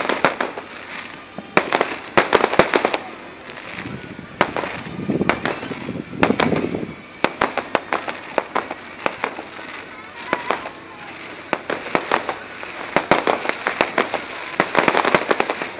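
Fireworks display: repeated sharp bangs and crackling firework bursts, coming thickest in a dense run of crackles near the end.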